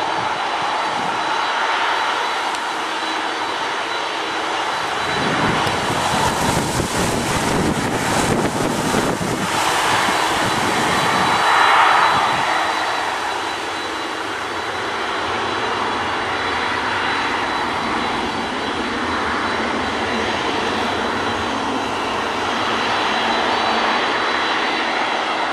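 Jet engines of an Airbus A300-600R, its two Pratt & Whitney PW4158 turbofans, landing. There is a steady whine with a thin high tone. About five seconds in a deeper rush of engine noise swells, loudest about twelve seconds in, as the airliner decelerates on its rollout, typical of reverse thrust. It then settles back to a steadier engine sound as the aircraft slows.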